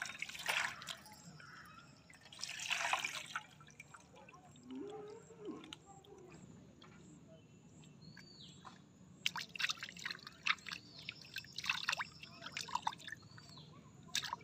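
Water splashing and dripping in a steel bowl as cleaned tilapia are handled and rinsed by hand. There are two short bursts in the first few seconds, then a run of quick splashes and drips in the second half.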